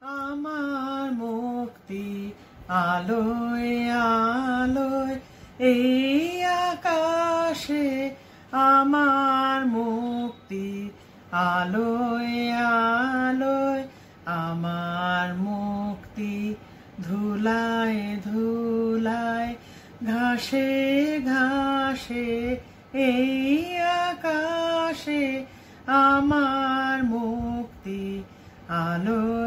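A woman singing solo and unaccompanied, in phrases of long held notes with short breaks between them.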